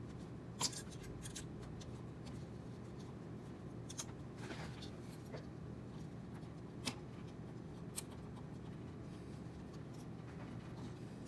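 Scattered small clicks and light scraping of small bolts, metal parts and a hand tool as screws are threaded into a 3D printer's hotend assembly, over a steady low background hum.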